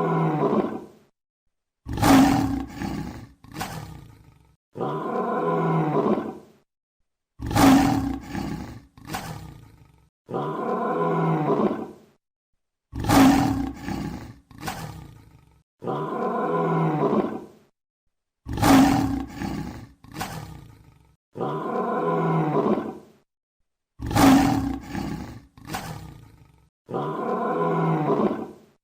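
Lion roaring, the same recorded roar sequence repeating about every five and a half seconds: each time two short loud roars followed by a longer one, with brief silences between.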